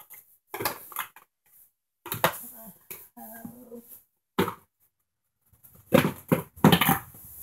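Rummaging through a cardboard box of packaged items: irregular rustling, scraping and knocks, loudest near the end. A short low hum or whine comes a little over three seconds in.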